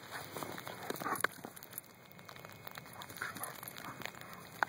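German shepherd romping in a thin layer of snow: a run of soft, scattered scuffs and taps, with a sharper tap about a second in and another near the end.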